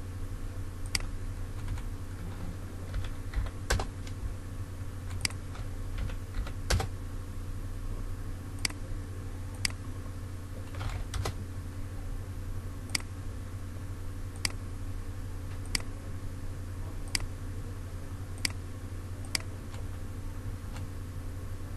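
Scattered sharp clicks from a computer keyboard and mouse, roughly one a second at irregular spacing, as AutoCAD commands are typed and points are picked. A steady low electrical hum runs underneath.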